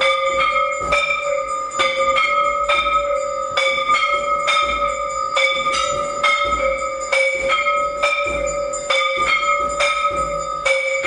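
Hanging temple bell rung by pulling its rope for aarti, struck again and again at about two strokes a second, each stroke ringing on into the next so that the bell's tone never dies away.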